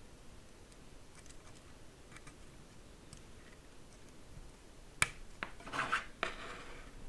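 A few faint scattered clicks from a mechanical keyboard, then a sharp clack about five seconds in, followed by a handful of clicks and short rubbing sounds.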